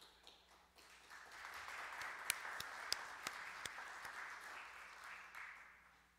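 A congregation applauding, swelling about a second in and fading out near the end, with a few sharper single claps standing out.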